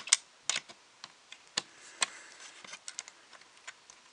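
Hand screwdriver working a small screw into an Apple TV's metal case: a run of irregular light clicks and ticks as the tip turns in the screw head, louder in the first two seconds and fainter after.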